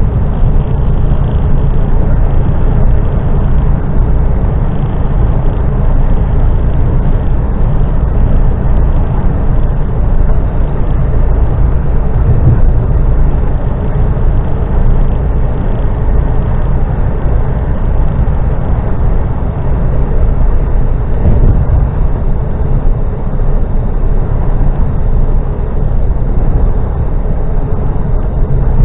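Steady engine and tyre rumble heard from inside a vehicle cruising on a motorway, loud and even throughout.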